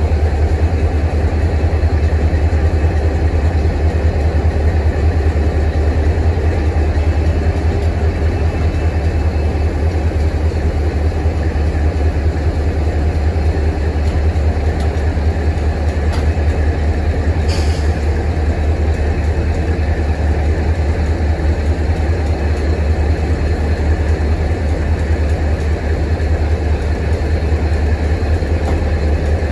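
A diesel train's engine idling with a steady, deep rumble, and one short click a little past halfway.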